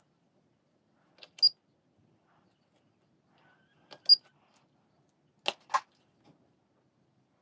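Scattered sharp clicks of small plastic and metal parts being handled at a bench with test leads and a multimeter, in pairs about a second and a half, four and five and a half seconds in. The loudest comes about four seconds in, as the multimeter's rotary dial is turned.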